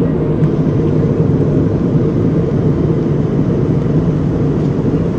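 Steady low drone of an airliner's cabin noise in flight, engine and airflow heard from a passenger seat, with an even hum underneath.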